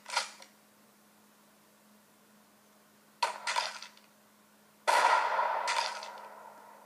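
A series of sudden clanging hits: a short double hit at the start, another few about three seconds in, and a louder crash about five seconds in that rings and fades out over a second or two.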